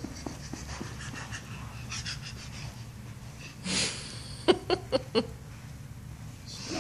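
Large dog panting in quick, breathy strokes. Just past the middle come four short, sharp knocks in quick succession.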